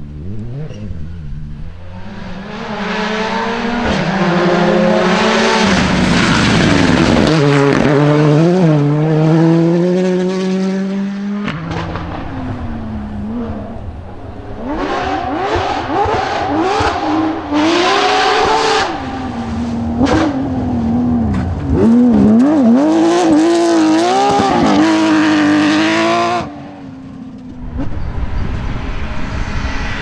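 Rally cars at full throttle on a special stage, one after another: engines rev high and drop sharply on gear changes and lifts, with gravel spraying from the tyres. In the middle section a Porsche 911 GT3's flat-six revs hard along a gravel track.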